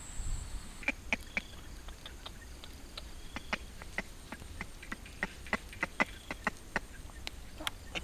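Wood campfire crackling: irregular sharp snaps and pops, a few each second.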